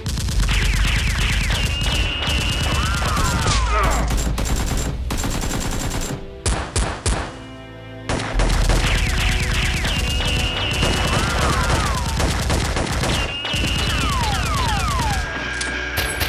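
Rapid bursts of automatic gunfire, a gunfire sound effect laid over the blaster fight, breaking off for a moment about six seconds in and then resuming. Background music plays underneath.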